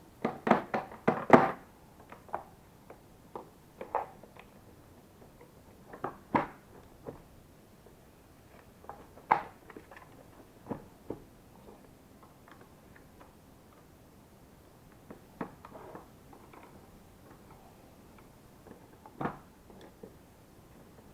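Scattered clicks and knocks of hard plastic parts being handled while an LG vacuum cleaner is taken apart: a quick cluster of several at the start, then single taps every few seconds.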